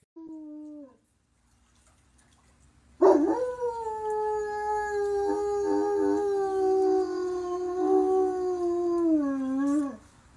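German Shepherd howling along with a siren: a short howl falling in pitch in the first second, then from about three seconds in one long, loud, steady howl that drops in pitch just before it stops near the end.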